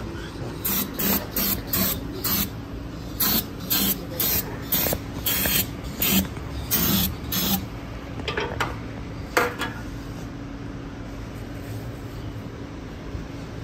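Quick hissing, scraping strokes, about two a second for several seconds, then a few scattered ones, as the engine block's oil pan mating flange is cleaned for resealing against an oil leak. A steady low hum runs underneath.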